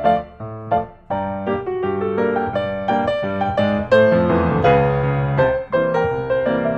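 Background music: solo piano playing a melody of quickly struck notes.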